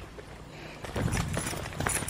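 Running footsteps on a packed-dirt trail, starting about a second in as a quick, uneven patter of thuds.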